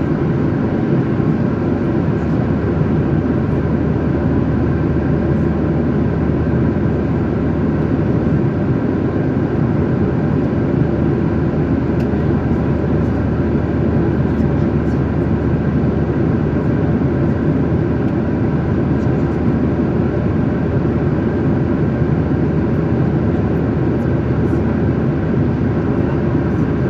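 Steady cabin noise of an airliner in flight: a constant rush of airflow and engine noise heard inside the passenger cabin.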